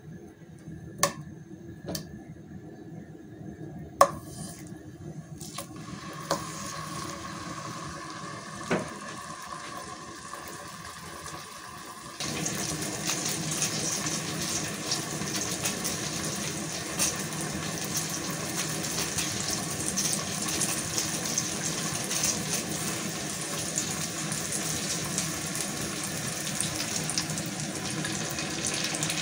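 Tomato slices frying in hot oil in a ceramic frying pan: a steady sizzle, with a few sharp knocks in the first several seconds. About twelve seconds in the sizzling jumps louder and stays even.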